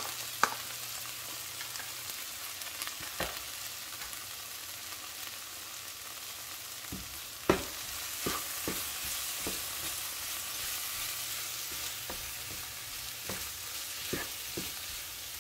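Capsicum, onion and chilli in spice paste sizzling steadily in a nonstick frying pan while being stirred, with scattered knocks and scrapes of the utensils against the pan, the sharpest about halfway through.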